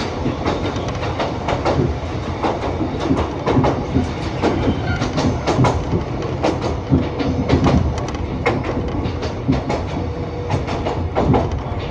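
A former Tokyu electric commuter train running, heard from inside the car: a steady rumble with frequent knocks and rattles, and the wheels clacking over rail joints.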